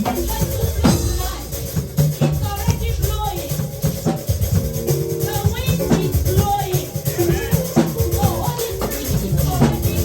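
Live church worship music: sustained chords over a steady drum kit beat with a shaker rattling along.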